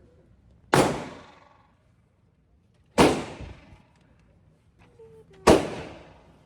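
Three single gunshots at a shooting range, spaced about two and a half seconds apart, each followed by a short echoing tail.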